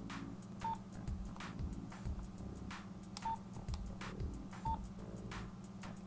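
Nokia 3330 keypad being typed on: a run of plastic button clicks, with three short single-tone key beeps from the phone's speaker.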